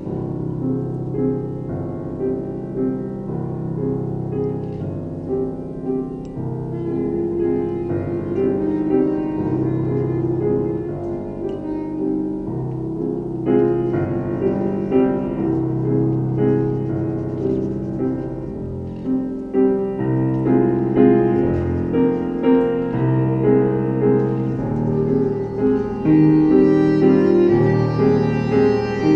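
Slow live keyboard music of held chords and changing notes, getting louder about halfway through and again near the end.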